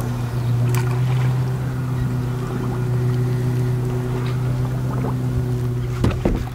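Boat motor running with a steady low hum, with a few light knocks, the two loudest close together near the end.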